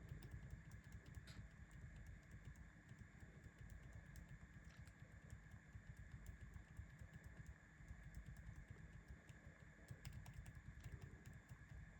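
Faint, repeated taps on a laptop keyboard's F9 key over a low background hum, pressed again and again to call up the boot menu as the machine restarts.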